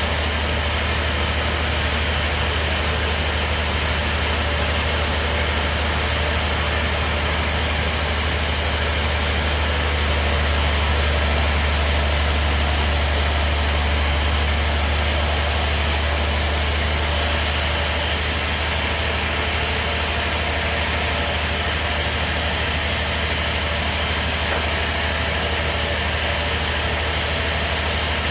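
Bandsaw sawmill running steadily, a strong low hum under a constant wash of blade and machine noise, growing a little louder about halfway through.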